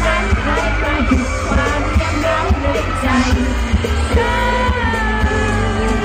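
Live Thai pop band music over loud PA speakers, with heavy bass and singing, and fans yelling over it.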